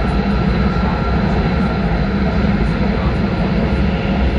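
Steady running noise inside the passenger cabin of a Hayabusa shinkansen travelling at speed: a deep low hum with an even rushing hiss on top, unchanging throughout.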